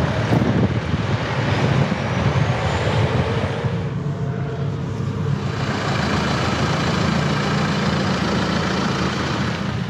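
Mini camper van driving: steady engine and road noise, heard with the window open.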